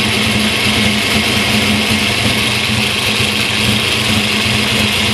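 Engine idling steadily at about 1,000 rpm, heard close by, with a constant low hum and a steady hiss. The engine is mid-way through ignition-timing setup, with its timing still about 5 degrees off.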